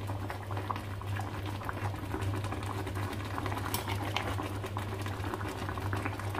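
Thin coconut-milk broth boiling in a wok, bubbling and popping, with light taps and scrapes of a metal spatula and a silicone spatula against the pan as a whole chicken is turned over in it. A steady low hum runs underneath.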